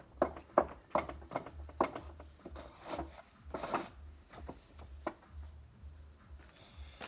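Tile grout being stirred in a plastic bucket with a stiff mixing tool: a quick run of scrapes and knocks against the bucket, about three a second, then a couple of slower, longer scrapes and a last knock.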